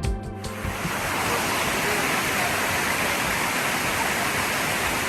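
Background music cuts off about half a second in and gives way to the steady rush of Amicalola Falls, a tall cascading waterfall flowing strongly after weeks of heavy rain.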